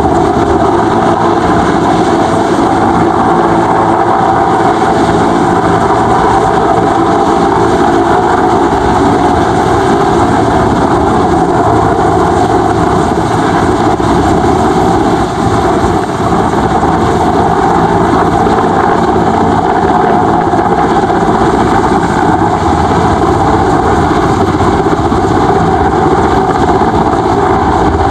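Mil Mi-8/Mi-17-family twin-turbine military helicopter hovering low: a loud, steady mix of turbine engine and rotor noise.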